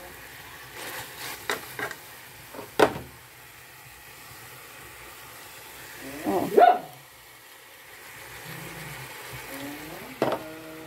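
Chicken pieces frying with onion in a pot in their own fat rather than deep oil, with a steady sizzle. A metal spoon knocks and scrapes against the pot several times in the first few seconds as the chicken is stirred and the browned bits are scraped loose. A dog barks briefly near the end.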